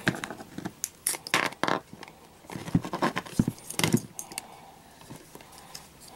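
Alligator-clip leads and wires handled over a plastic tank: irregular clicks, rattles and scrapes for about four seconds, then only a few faint ticks.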